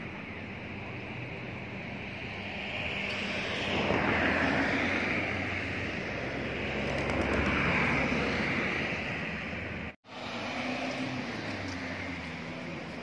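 A passing vehicle: a noisy rush that swells over several seconds and fades, over steady outdoor background noise with a low hum, cut off by a brief dropout about ten seconds in.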